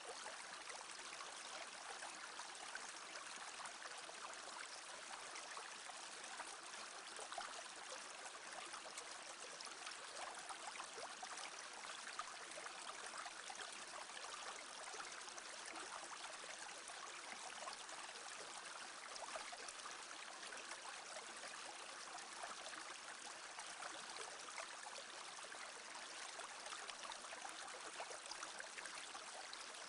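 Small stream flowing steadily, a continuous babble of running water.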